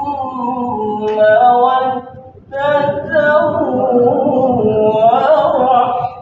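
A man reciting the Quran in melodic tilawah style, unaccompanied: long held, ornamented phrases, with a short pause for breath about two seconds in. The recitation is done while the reciter has a cough and flu.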